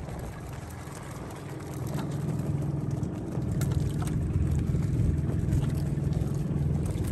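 Small fishing boat's engine running steadily, a low hum that grows louder about two seconds in.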